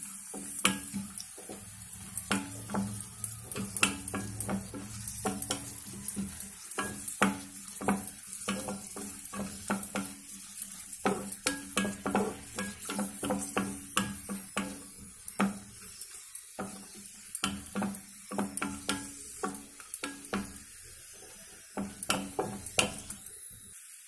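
Cashews and almonds frying in ghee in a kadai, sizzling, while a spatula stirs them with quick, irregular clicks and scrapes against the pan.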